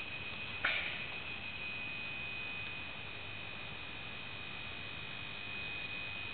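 Sodium and mercury vapour lamps running on their ballasts: a steady high-pitched whine over a faint mains hum, with a short crackle just under a second in.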